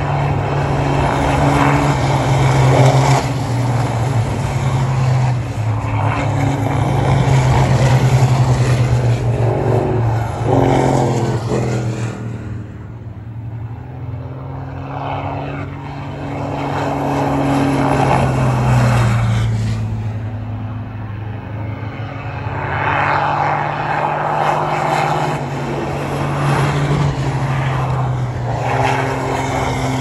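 A pack of race trucks' turbocharged diesel engines running hard past the track. Their drone swells and fades and shifts in pitch as the trucks come by, with two lulls before the next trucks arrive.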